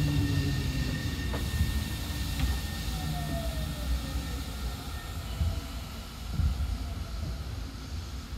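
Eidan 7000 series chopper-controlled subway car heard from inside while running: a low rumble of wheels and running gear with faint steady whines and a short falling tone, the sound easing off as the train slows.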